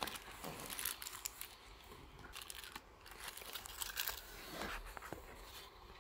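Thin clear plastic wrapper crinkling and rustling in the hands, with a few light clicks and taps of a small vinyl toy figure and its parts being handled.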